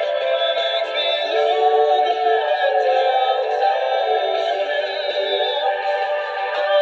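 A song with singing played through a small electronic speaker, its sound projected through stacked paper drinking cups. It sounds thin, with no bass.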